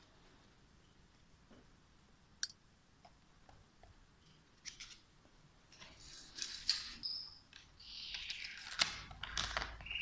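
Aerosol spray-paint can hissing in several short bursts in the second half, with a longer burst near the end, among small clicks and rustles of cans and paper being handled. The first half is mostly quiet apart from a single sharp click.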